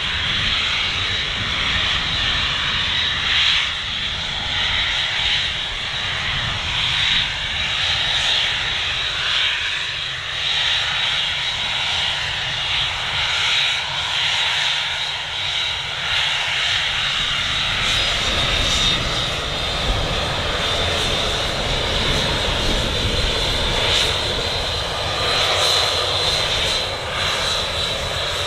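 Cessna 560XL Citation XLS's twin Pratt & Whitney Canada PW545 turbofans running at taxi power: a steady high whine over a low rumble. About two-thirds of the way through, a fuller rushing sound of jet exhaust joins in as the jet turns.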